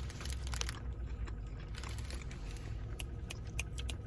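A person chewing a mouthful of a soft breakfast sandwich, with scattered small wet clicks, over a steady low hum inside a car.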